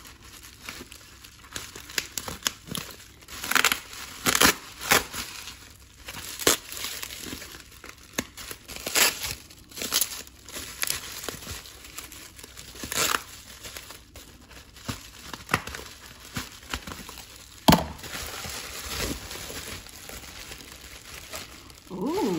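Plastic bubble wrap crinkling and rustling as it is handled and pulled open from around a potted orchid, in irregular crackles with a sharp snap about three-quarters of the way through.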